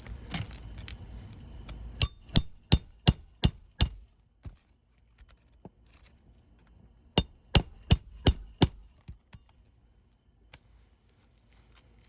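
Roofing nails being hammered into a replacement asphalt shingle: two runs of sharp, ringing hammer blows, six and then five, about three a second, each run driving one nail home.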